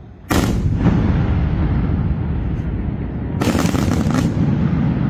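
Aerial firework shells bursting: a loud bang about a third of a second in, then a continuing low rumble, and a rapid run of sharp reports at about three and a half seconds.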